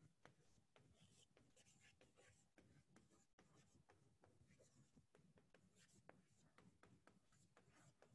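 Faint chalk writing on a chalkboard: a run of short scratching and tapping strokes as letters are written.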